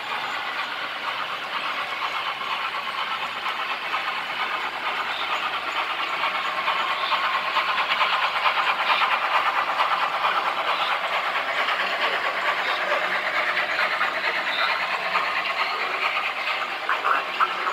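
Model train coaches rolling past on model railway track: a dense fine rattle of small metal wheels over rail joints and points. It grows louder toward the middle as the train passes close, with a cluster of sharper clicks near the end.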